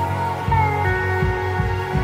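Background music: held notes over a steady beat that comes in about half a second in.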